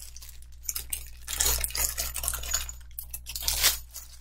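Irregular rustling of clear plastic packaging and small clinks of a metal chain necklace being handled as it is unwrapped.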